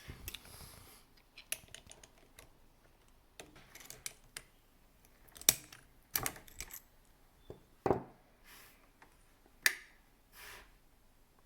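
Irregular sharp clicks, taps and knocks of parts being handled inside an opened coffee machine, with a few short rubbing sounds in between.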